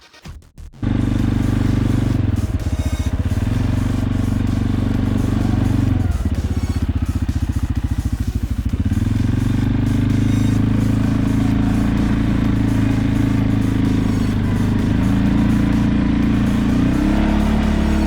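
CFMoto 520L ATV's single-cylinder engine running at low revs, its speed rising and falling as it pulls along the track, with a fast, even firing beat plain for a few seconds around the middle.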